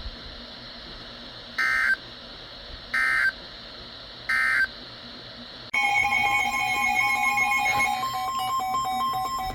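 Three short, identical screeching data bursts about a second and a half apart: an Emergency Alert System SAME digital code, its short length typical of the end-of-message signal closing a weather radio alert. About six seconds in, a loud, steady electronic alert tone made of several stacked pitches starts and keeps going.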